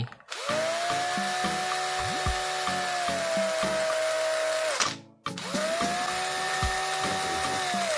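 Electric drill spinning an adjustable circle cutter with no load, in two runs: it spins up to a steady whine about half a second in, winds down near five seconds, then spins up again and stops near the end.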